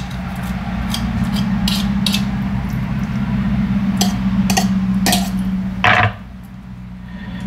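Kitchen utensils tapping and scraping against a slow cooker's crock as garlic is knocked off into it: a string of sharp knocks with one louder clack about six seconds in. A steady low hum runs underneath and drops away after the loud clack.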